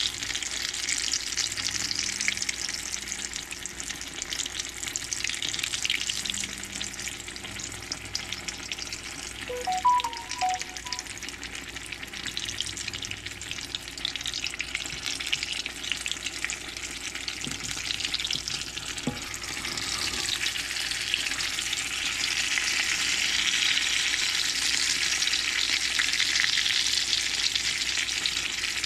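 Cherry hand pies deep-frying in vegetable oil in a cast-iron skillet: a steady crackling sizzle that grows louder about two-thirds of the way through. A short ringing sound stands out about ten seconds in.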